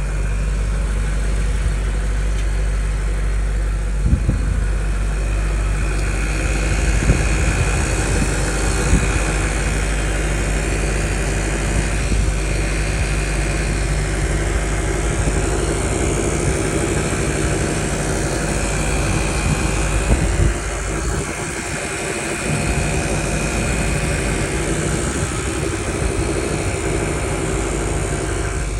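2023 BMW M5 running steadily, with a high whine that comes and goes and a few knocks in the first ten seconds: the weird noise the car is making.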